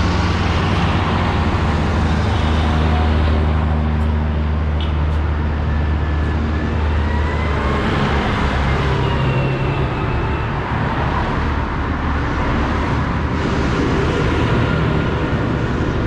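Diesel engines of modern farm tractors running as they drive past close by one after another, a steady low drone throughout. About halfway a motorhome drives past right by the microphone, with engine tones rising and falling as the vehicles go by.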